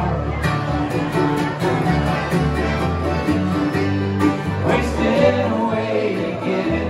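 Live acoustic bluegrass band playing: upright bass, mandolin, acoustic guitar, banjo and accordion together, with a walking bass line under quick picked notes.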